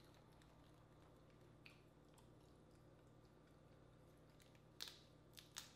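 Faint cracks and snaps of a boiled crawfish shell being broken and peeled by hand, a lone crack about a third of the way in and three sharper cracks close together near the end, over near silence.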